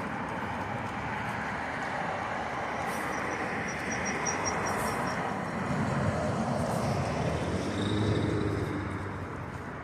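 Steady road traffic noise from passing cars, with a faint row of short high chirps in the middle.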